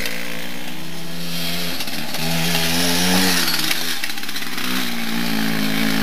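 Suzuki JR50 mini dirt bike's small two-stroke single-cylinder engine running as it is ridden, revving up and down with the throttle; the pitch climbs about two seconds in, drops back, and climbs again near the end.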